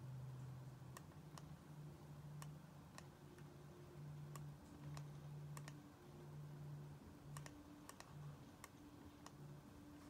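Faint, irregular clicking at a computer, roughly one click a second, from working the pointer to drag and resize a text box. A low hum comes and goes underneath.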